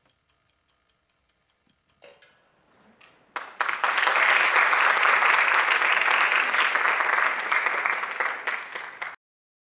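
Theatre audience applauding at the end of a dance solo. The clapping starts suddenly about three and a half seconds in, runs steadily for about six seconds and cuts off abruptly. Before it come a few faint, evenly spaced clock-like ticks from the end of the music.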